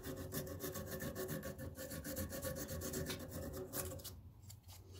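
Fine sandpaper rubbed by hand on the metal end pin of a K40 laser tube in quick back-and-forth strokes, scouring soot and arcing deposits off the terminal. The strokes stop about four seconds in.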